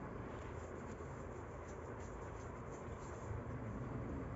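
Quiet room tone: a steady low hum and hiss with faint, scattered light ticks and rustles.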